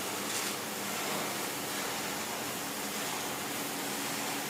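Wallpaper trimming machine running, its rollers feeding printed wallpaper through, giving a steady even hiss with a faint hum underneath.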